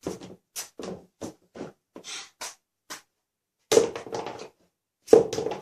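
An irregular series of short taps and rustles, about a dozen, with two louder clusters, one just under four seconds in and one near the end.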